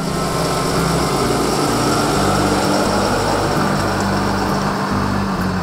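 Engine of a milk tanker truck running steadily as the truck drives slowly out of a garage, an even, unbroken rumble.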